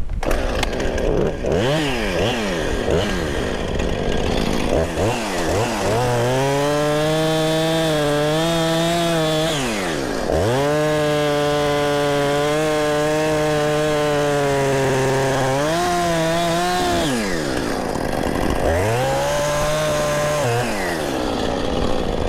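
Chainsaw revved in quick blips, then held at full throttle through three long cuts into a small tree trunk, dropping back between cuts, typical of cutting a Humboldt felling notch.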